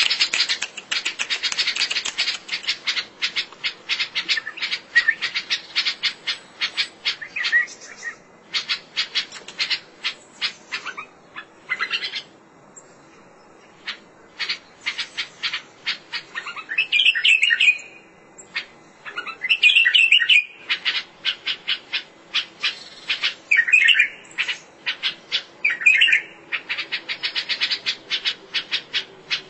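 Bulbul singing: short warbled phrases repeated every few seconds among rapid runs of clicking, chattering notes, with a brief pause about halfway through.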